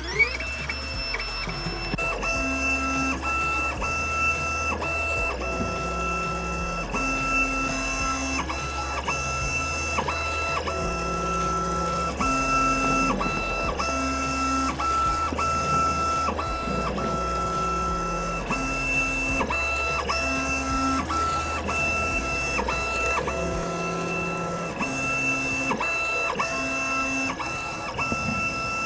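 Nema17 stepper motors of a small CoreXY CNC mill driving its GT2 toothed belts through a test program: a steady high whine with lower motor tones that change pitch every second or two as the axes start, stop and change direction.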